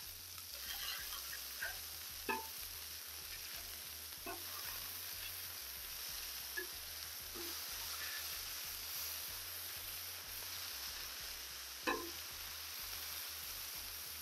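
Beef smash burger patties sizzling steadily on a hot Blackstone flat-top griddle as they are flipped. A metal spatula scrapes under them and clicks on the steel plate a few times.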